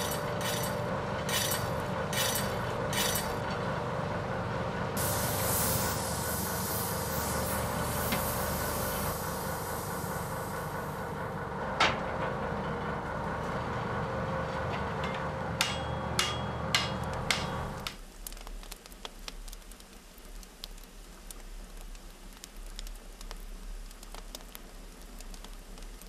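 Blacksmith's forge work on a miner's pick: the forge fire gives a steady low rumble, with several sharp metal taps in the first three seconds and a cluster of strikes about twelve to seventeen seconds in. There is a stretch of hissing about five to eleven seconds in. The rumble stops suddenly at about eighteen seconds, leaving faint clicks and handling noise.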